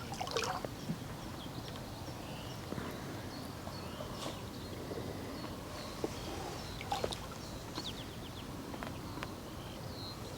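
Quiet outdoor background with faint, scattered bird chirps and a few light clicks.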